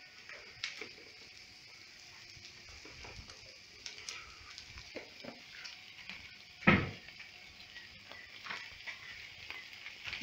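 Metal utensil clinking and scraping on a charcoal barbecue grill grate as meat is turned, with one louder clank a little past the middle, over a steady high hiss.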